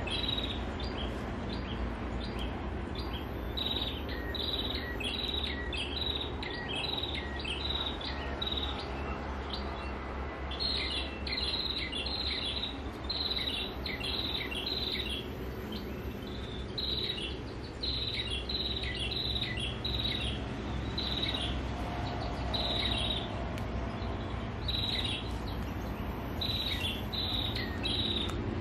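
Prinia (perenjak) call played as a lure from an MP3 bird-call player: clusters of short, sharp chirps repeating over and over. Underneath is a steady low rumble of road traffic and, in short spells, a thin high insect whine.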